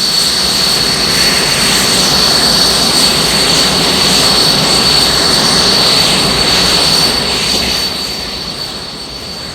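Jet aircraft engine running, a steady rushing noise with a thin high whine on top, fading away over the last couple of seconds.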